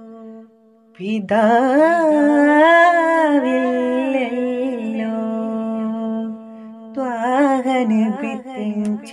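A solo voice sings a slow devotional melody in long, gliding, ornamented phrases over a steady hummed drone. The singing comes in about a second in, pauses for a couple of seconds midway on the held drone, and then resumes near the end.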